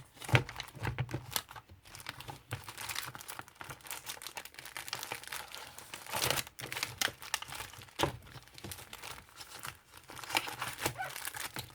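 Packaging being handled by hand, crinkling and rustling with irregular small crackles. Louder crackles come just after the start, around six seconds in and around eight seconds in.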